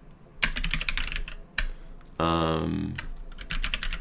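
Computer keyboard typing: a quick run of keystrokes, a single key click, then another short run near the end, with a brief voiced sound falling in pitch a little past halfway.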